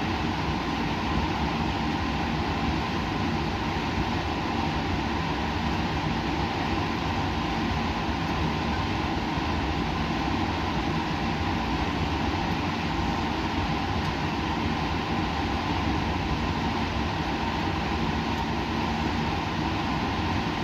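Steady laboratory background noise: an unbroken mechanical hiss and drone with a faint low hum, unchanging throughout.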